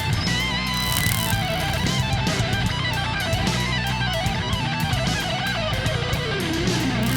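Background music led by electric guitar, with a wavering lead line over a steady low accompaniment and a regular beat.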